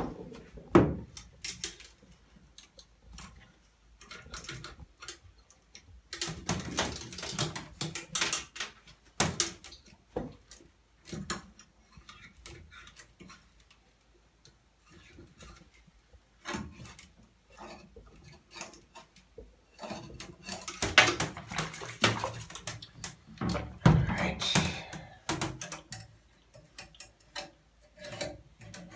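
A flexible cleaning snake being worked back and forth through a French horn's brass tubing under water: irregular scraping and rubbing, with scattered knocks and clatters as the horn is handled.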